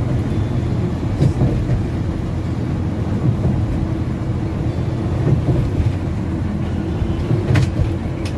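Intercity coach bus heard from inside the cabin while travelling: a steady low engine and road rumble, with a sharp click near the end.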